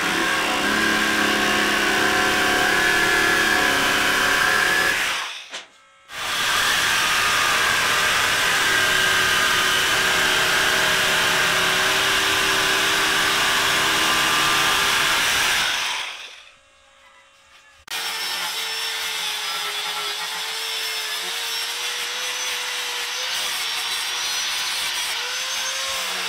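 A power tool working wood, running in two long spells that stop abruptly about five seconds in and again about sixteen seconds in. After a short pause a quieter, steadier tool sound with a wavering whine follows.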